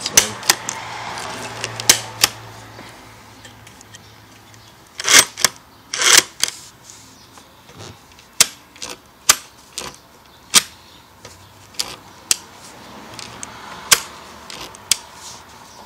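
The side knobs and levers of a Graflex Speed Graphic press camera being worked by hand give a dozen or more sharp clicks at irregular intervals. A louder cluster of clicks comes about five to six seconds in.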